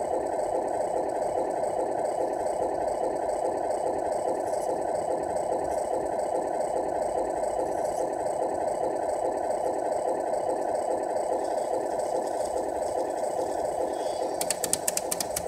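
Simulated truck diesel engine idling steadily, played through the small speaker of the Tamiya MFC-01 multi-function control unit in a 1/14 Scania R470 RC tractor truck. A quick run of sharp clicks comes near the end.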